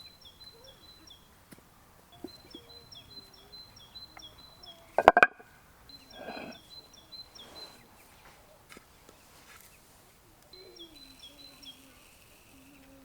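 A small songbird singing, repeating a quick series of short high chirps in four bouts. A single loud, sharp knock about five seconds in.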